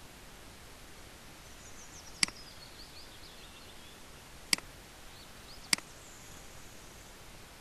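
Three sharp single computer mouse clicks, well spaced, at about two, four and a half and nearly six seconds in, over a low steady hiss.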